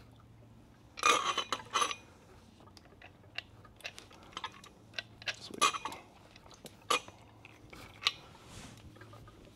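Scattered metallic clinks and knocks from motorcycle fork parts and tools being handled: a quick cluster about a second in, then single sharper clinks spread through the rest, over a faint steady low hum.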